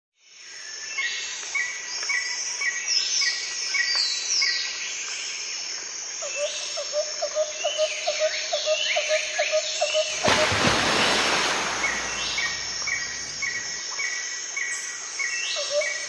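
Several birds chirping and calling over one another, with quick runs of repeated chirps and short sweeping whistles. A lower, rapid pulsing call runs for a few seconds in the middle. About two-thirds through, a loud rushing noise swells for about three seconds and comes back near the end.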